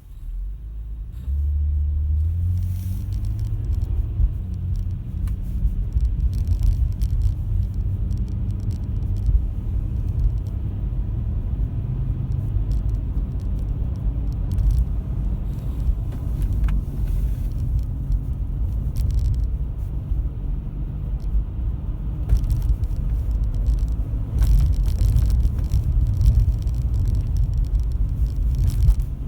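2005 Toyota Estima driving, with a low, motor-like hum that drifts a little in pitch over the road rumble. The hum is the sign of a worn right rear hub bearing.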